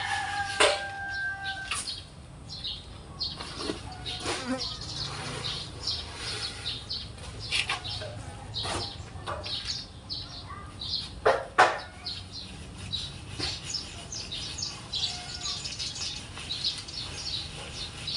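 Sand being sifted by hand through a wire-mesh screen: irregular rustling and scraping of sand across the mesh, broken by a few sharp knocks, the loudest about eleven and a half seconds in. A rooster's crow tails off in the first second and a half.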